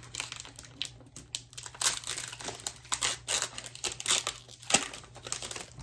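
Foil Pokémon card booster pack being torn open and crinkled as the cards are slid out of the wrapper: a run of crackling and tearing, with one sharper crackle near the end.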